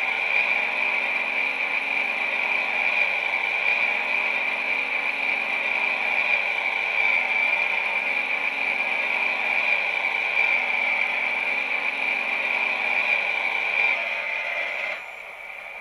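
Homemade acoustic smoker running: a steady, loud buzzing hiss as it drives smoke out of its tubes. It drops slightly near the end, then cuts off suddenly.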